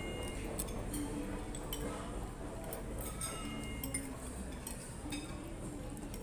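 Spoon and fork clinking against plates a few times during a meal, scattered sharp clinks over a steady low background hum.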